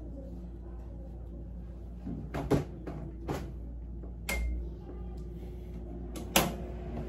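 A window-type air conditioner switched on by its front control: a short beep with a low thud about four seconds in, then its steady hum. Knocks from someone moving across a bed come before it, and a sharp knock near the end.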